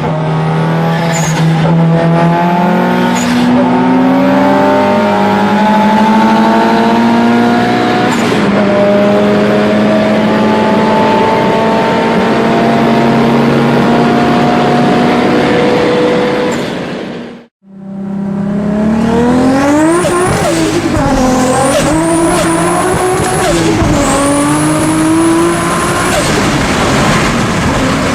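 Turbocharged car engines running hard, in two clips with a sudden cut about two-thirds of the way through. The first is a steady engine note that steps up and down in pitch. The second revs up and down, with a high turbo whistle rising again and again as the revs climb.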